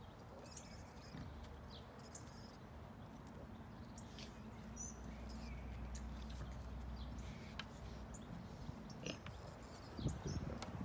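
Small birds chirping now and then over a steady low outdoor rumble. Near the end come short scuffs and crunches, wild boar rooting with their snouts in dry forest soil.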